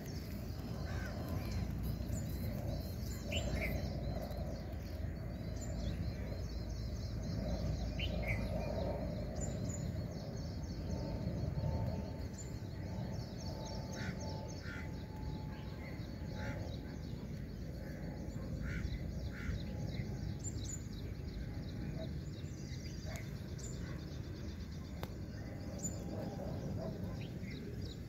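Outdoor ambience: birds calling now and then over a steady low rumble.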